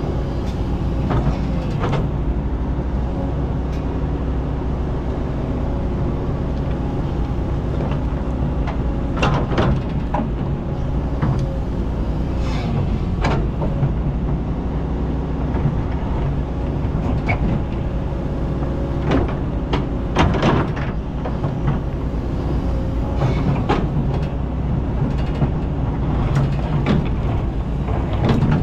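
Kobelco hydraulic excavator's diesel engine running steadily under digging load, heard from the operator's cab, with scrapes and knocks as the bucket cuts into sand and stones several times.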